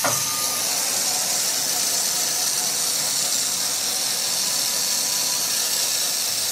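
Hand-held angle grinder grinding a steel trunnion shaft as the shaft turns in a lathe: a steady, high-pitched grinding hiss.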